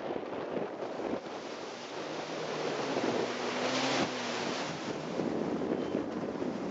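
Surf washing ashore, with wind buffeting the microphone. A jet ski's engine drones faintly through the middle.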